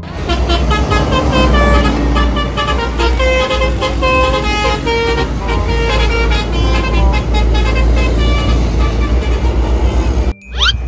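A bus's multi-tone "telolet" horn plays a quick tune of short stepped musical honks over a steady low engine rumble. The sound cuts out briefly near the end.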